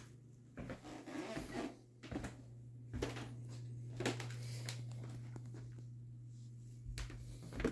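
Soft footsteps, light knocks and rustling of someone moving about, over a steady low hum.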